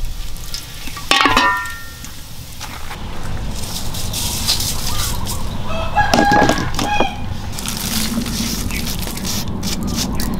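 Rooster crowing, a long crow about six seconds in after a shorter call about a second in, over steady background noise, with a few light clicks near the end.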